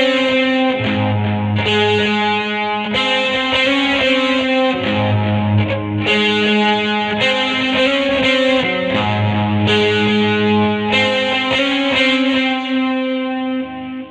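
Squier Vintage Modified Jaguar electric guitar playing sustained chords through effects with light distortion, a new chord struck every second or so. The last chord rings out and fades near the end.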